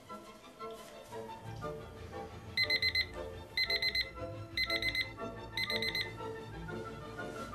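Bedside alarm clock beeping: four short bursts of rapid beeps, one burst a second, all on the same high pitch, starting a couple of seconds in. Background music plays throughout.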